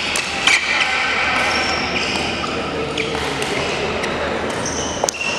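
Badminton rally on a hardwood gym court: a few sharp racket strikes on the shuttlecock and short squeaks of players' shoes on the floor, with the echo of a large hall.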